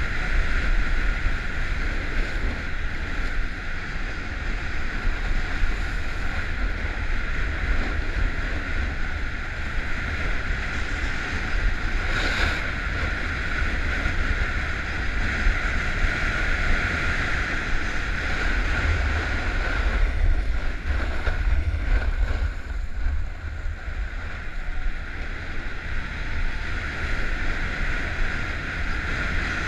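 Wind buffeting the camera's microphone together with the steady hiss of snow under a rider sliding down a groomed ski slope, with one short sharp sound about twelve seconds in.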